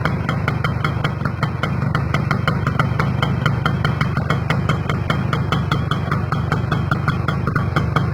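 Kawasaki GTO motorcycle's two-stroke single-cylinder engine idling steadily, with a regular tick about six times a second.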